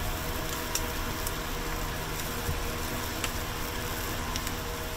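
Eel fillets sizzling on a grill grate over charcoal, a steady sizzle with a few faint sharp pops, over a steady low hum.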